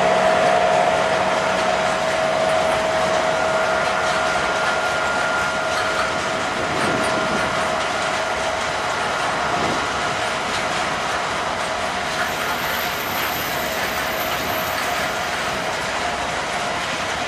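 Freight train wagons rolling past at steady speed, wheels clacking over the rail joints, with a steady high-pitched whine running over the rolling noise.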